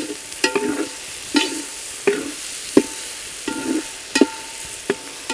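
A metal ladle stirs shallots, curry leaves, coriander and mint frying in oil in a large metal pot. It knocks and scrapes against the pot about once every 0.7 seconds, over a steady sizzle, and the pot rings faintly after some strokes.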